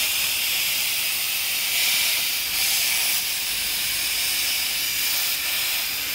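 Compressed air hissing steadily from an air-hose nozzle held in the valve of a PVC Zodiac inflatable boat tube as the tube is inflated.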